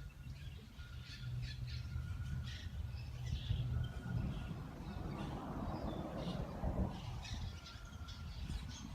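Birds calling with many short chirps over a steady low hum, with a rush of noise about midway through.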